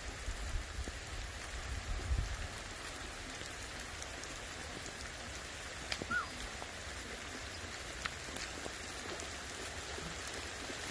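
Steady rain falling on waterlogged open ground, an even hiss with scattered sharp drop ticks. A low rumble swells in the first couple of seconds, and a single short chirp sounds about six seconds in.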